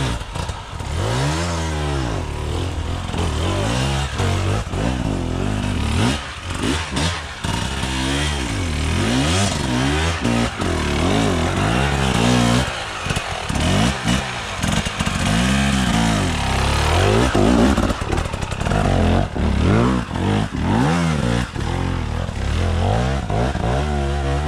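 Enduro dirt-bike engine revving hard in repeated bursts while climbing a steep, rocky slope, the pitch rising and falling every second or two.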